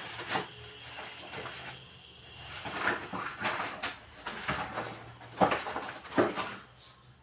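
Rummaging through a cupboard: irregular knocks, clatter and rustling of objects being moved about.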